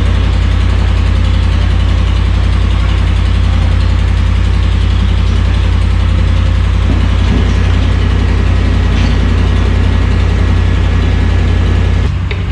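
The Ram 1500's 5.7 Hemi V8 running steadily with a low, even rumble. The sound drops slightly near the end.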